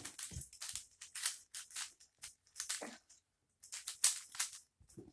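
Plastic 3x3 twist puzzle cube being turned by hand: a string of quick, irregular plastic rasps and clicks as its layers turn.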